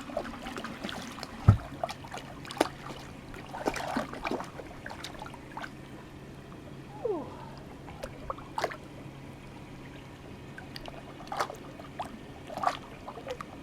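Shallow lake water trickling and splashing in small scattered bursts as a dog wades and pounces after minnows, with one thump about a second and a half in. A faint low hum runs through the middle.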